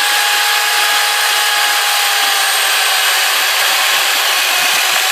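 Stihl MSE 250 C electric chainsaw with an 18-inch bar and carbide chain, running steadily at full speed: the electric motor's whine over the rattle of the chain.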